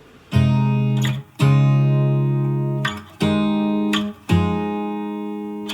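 Background music: an acoustic guitar strumming chords, four chords each struck and left to ring out before the next.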